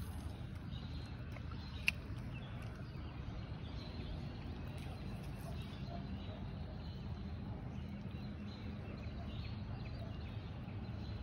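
Wind rumbling steadily on the microphone, with faint bird calls and a single sharp click about two seconds in.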